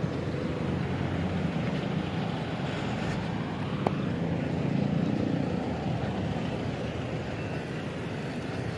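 Road traffic: motor vehicle engines running in slow, jammed traffic, a steady hum with one brief sharp click about four seconds in.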